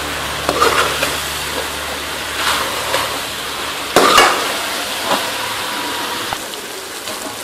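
Bitter gourd and potato pieces being stirred into sizzling masala in a metal kadai with a steel spoon: a steady sizzle with scrapes of the spoon against the pan, the strongest about four seconds in.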